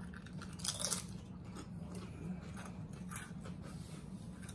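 Mouth crunching and chewing Doritos tortilla chips: irregular crisp crunches, the loudest about a second in, over a faint steady low hum.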